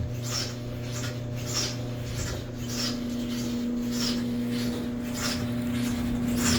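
Clothes dryer running with a steady motor hum and a repeated rubbing, scraping noise about twice a second: an abnormal noise that the owner places low down in the machine.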